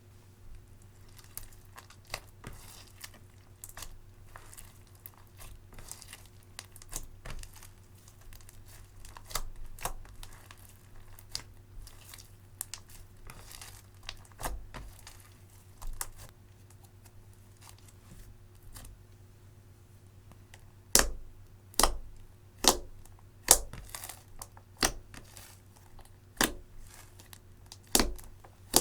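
Clear slime, with eyeshadow mixed in, being squished and stretched by hand, crackling stickily with small clicking air-bubble pops. In the last third come about seven louder, sharp pops.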